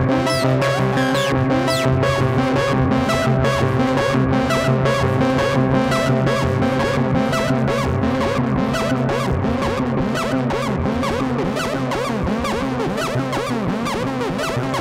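Modular synthesizer patch playing: sustained synced-oscillator tones from a Moog Matriarch over a gritty low end from a quad VCO, mixed and fed back through a Doepfer A-138m matrix mixer. Over the held tones runs a fast, even ticking pulse and a flurry of short swooping pitch chirps that thickens in the second half.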